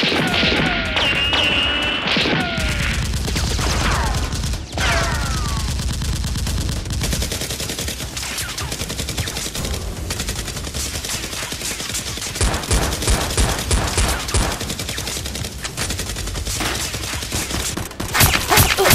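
Rapid volleys of gunfire sound effects, shot after shot in quick succession, with a few falling whistling sweeps in the first few seconds and a louder flurry of shots near the end.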